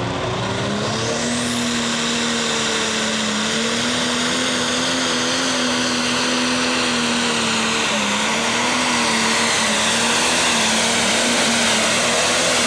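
Pro Stock pulling tractor's turbocharged diesel engine at full throttle under load while dragging a weight-transfer sled. A high turbo whine climbs in the first two seconds and then holds, and the engine note dips slightly about eight seconds in.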